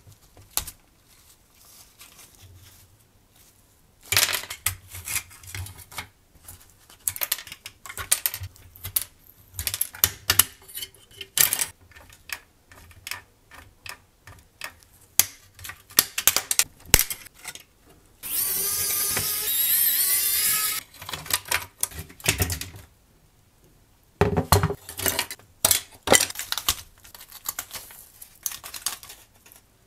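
Irregular clicks, taps and rattles of small metal and plastic parts handled as a rusty scale model car is taken apart, starting about four seconds in. About two-thirds of the way through, a steady hiss-like whir lasts about two and a half seconds and is the loudest sound.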